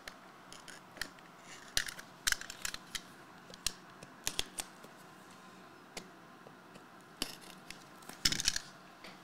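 Shrink-wrapped trading-card boxes being handled, their plastic wrap crinkling and clicking: a scatter of short, sharp crackles in small clusters, the busiest shortly before the end.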